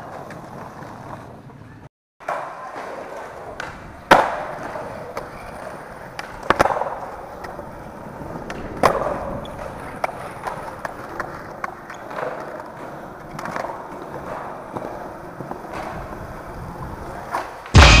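Skateboard wheels rolling on concrete and paving, broken by several sharp clacks of the board hitting the ground, the loudest about four seconds in.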